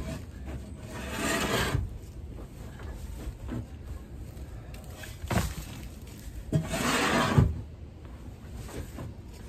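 Shovel scraping and scooping soiled pine shavings off a wooden coop floor, in three noisy strokes: about a second in, around five seconds, and the loudest around seven seconds.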